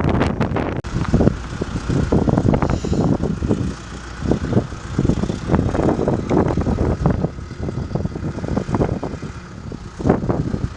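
John Deere 310SG backhoe loader's diesel engine running, with a steady low rumble and irregular knocking and clatter over it.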